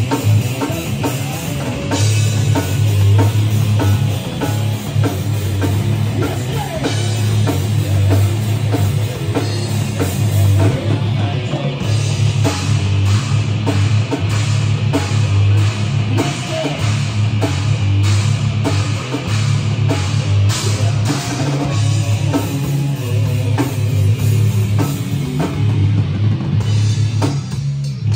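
Live rock band playing loud: electric guitar and a drum kit, with a steady drum beat.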